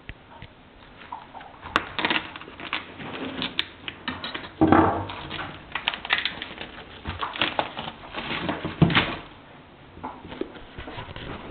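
Plastic packaging crinkling and rustling as it is pulled off a whole raw chicken on a foam tray, with irregular crackles and a few sharp clicks.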